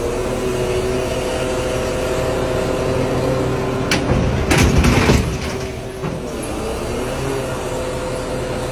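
Heavy vehicle's diesel engine running steadily with a whine, and a loud rushing noise about halfway through, lasting under a second.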